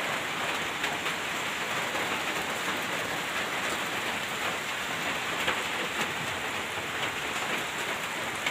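Steady rain from a tropical storm falling in an even hiss, with a few sharper drops landing close by.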